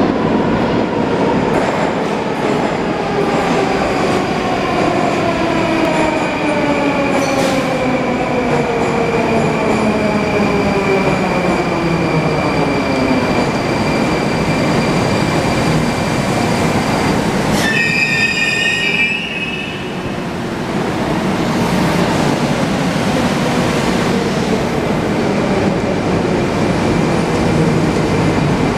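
Rusich 81-740/741 metro train's traction drive whining, the pitch falling steadily as the train slows, with a steady high tone above it. About two-thirds of the way in, a short cluster of high squealing tones comes as it stops, followed by steady train and station noise.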